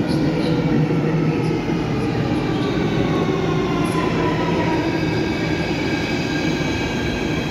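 Athens metro Line 2 train arriving at an underground station platform: a steady rumble of wheels on rails, joined by a high whine about three seconds in as it enters the platform.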